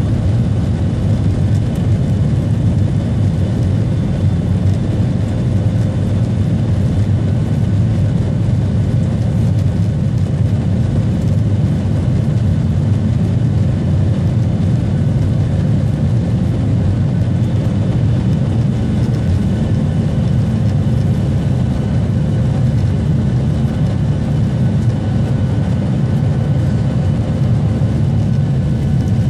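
Jet airliner's engines at takeoff power, heard from inside the cabin over the wing: a loud, steady rumble with a faint steady whine above it, through the takeoff roll and climb-out.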